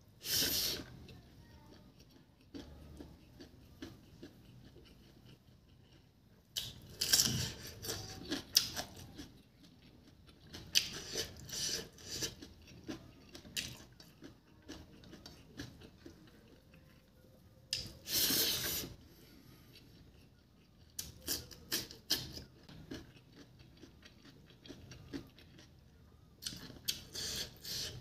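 A person chewing and biting rice and chicken feet by hand, the eating sounds coming in short spells every few seconds with quieter stretches between.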